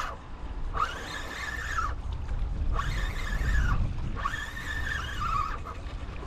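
Spinning reel whirring in three bursts of about a second each as line runs under the load of a hooked fish, over a low wind rumble on the microphone.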